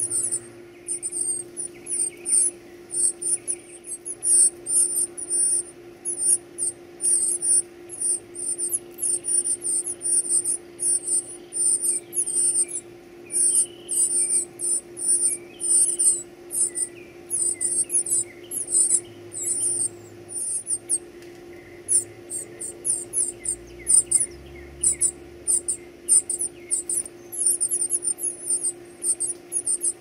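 Northern cardinal nestlings begging for food: rapid, very high-pitched squeaky peeps, several a second, with a brief pause about two-thirds of the way through.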